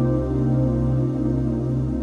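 Ambient new-age background music: sustained synthesizer-like tones over a steady low drone, with no beat.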